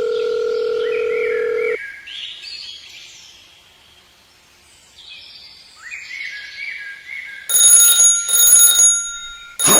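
A steady beep for about two seconds, then faint short chirps like birdsong, then a loud alarm-clock-style bell ringing in bursts from about three-quarters of the way in.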